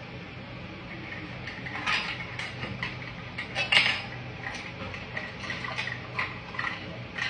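Kitchen utensils and dishes clinking and clattering while she handles baking tools: a run of light, uneven knocks, the loudest about four seconds in.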